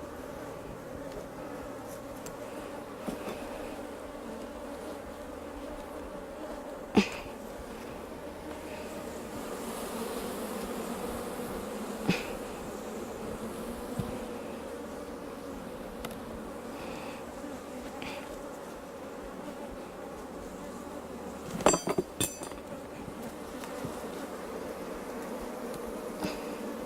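Honeybees buzzing steadily in a dense swarm around an opened hive. A few sharp knocks cut through: one about a quarter of the way in, another near halfway, and a quick run of them near the end.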